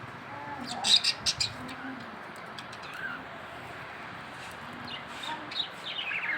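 Budgerigars chirping and chattering: a burst of sharp chirps about a second in, a few quieter calls, then a run of quick falling chirps building toward the end.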